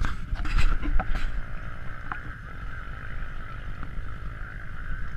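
Steady low rumble with a hiss around it, wind and vehicle noise on an action camera's microphone, with a few sharp knocks in the first second or so as the camera is handled.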